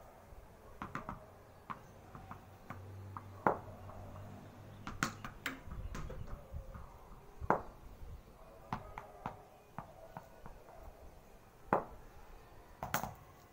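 Scattered light knocks and taps of a tennis ball against a cricket bat and a concrete floor, irregularly spaced, about eight in all.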